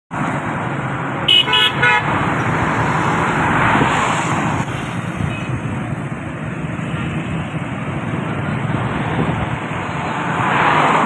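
Road traffic on a wet street: vans and cars passing with tyres hissing on the wet road, and three quick horn toots about a second and a half in. The traffic noise swells as vehicles pass close, around four seconds in and again near the end.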